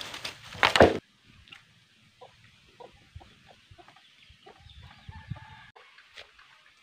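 Chickens clucking in short, scattered calls, after a brief loud burst in the first second.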